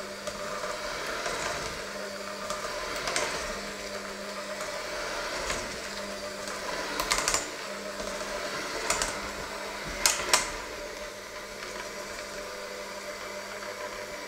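Electric hand mixer running steadily, its beaters whisking a thick mixture in a stainless steel bowl. A few sharp knocks come as the beaters strike the metal bowl, the loudest two a little past the middle.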